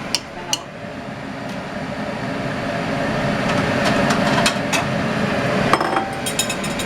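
A metal utensil clinking and scraping against a pot while stirring flour into the liquid from canned rabbit, over a steady low rumble that grows gradually louder.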